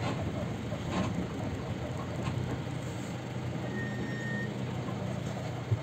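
A motor vehicle engine idling, a steady low hum, with a single knock near the end.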